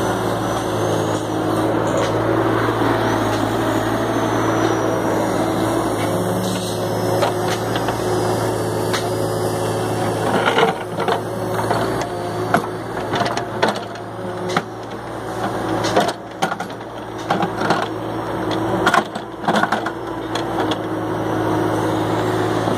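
JCB 30PLUS mini excavator running steadily as its bucket digs through soil and broken rock around concrete piles. From about halfway through come repeated sharp knocks and clatters of rock and debris against the bucket.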